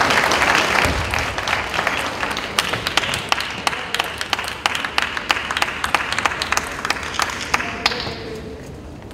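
Spectators applauding after a point, a dense patter of many hands clapping, loudest at first and dying away near the end.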